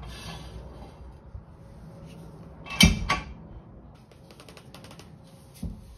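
Wooden blocks and strips being handled at a steel jack stand: a light scrape at the start, then a sharp clatter of wood knocking, twice in quick succession, about three seconds in, and a dull thump near the end.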